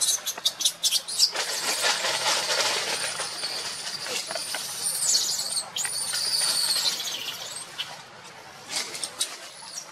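Baby macaque screaming in distress as its mother handles it roughly: long, high-pitched, wavering squeals that start about a second in and die down near the end, after a few sharp clicks at the start.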